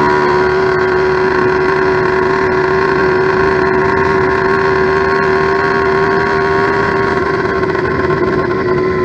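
Motorized bicycle's steel-bore kit two-stroke engine (about 90cc on an 80cc China-doll bottom end) running under way at a steady, fairly high rev, its pitch holding even.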